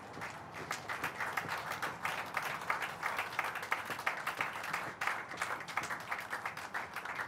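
A group of people applauding, the clapping breaking out suddenly at the start.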